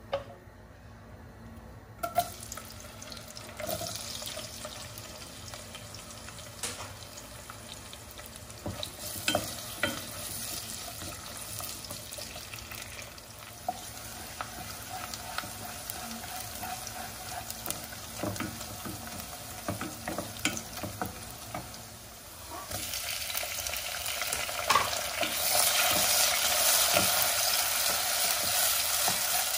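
Sliced onions frying in coconut oil in a non-stick kadai, stirred with a wooden spatula: a steady sizzle broken by frequent scrapes and taps against the pan. The sizzle grows louder near the end, once tomato slices are in the pan and being stirred.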